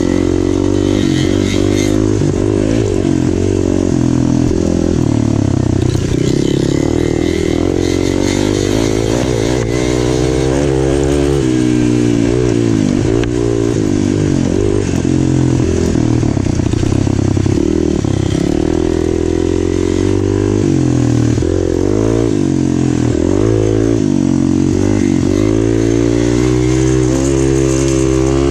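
Kawasaki dirt bike engine heard from on the bike, revving up and dropping back over and over as the throttle is opened and closed through the gears.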